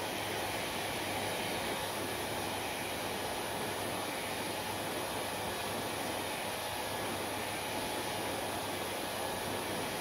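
Hair dryer running steadily: a constant rush of blown air with a low hum underneath.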